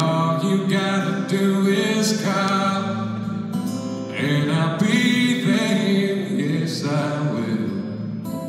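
Live acoustic performance: two acoustic guitars strummed with a voice singing the melody.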